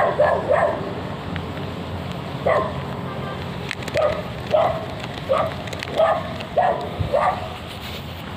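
A dog barking repeatedly: three quick barks at the start, then about seven more single barks, roughly one every half second to second from about two and a half seconds in.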